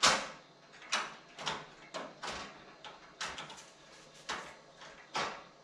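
Irregular metal clanks and knocks of a steel sliding server rail being worked against the rack post to get its front latch to lock into place. There are about ten knocks, and the first is the loudest.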